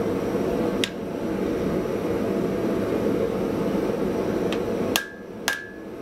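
Hand hammer striking a red-hot, fluxed stack of Damascus steel billets on an anvil to set a forge weld: one blow about a second in, then a quick run of blows near the end, each ringing briefly off the anvil, over a steady noisy background.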